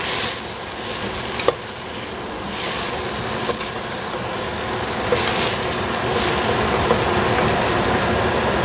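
Bok choy, peas and shiitake mushrooms sizzling in oil in a stainless steel pot while a wooden spatula stirs and scrapes them in bursts, with one sharp knock about a second and a half in. The stirring stops near the end and the steady sizzle goes on.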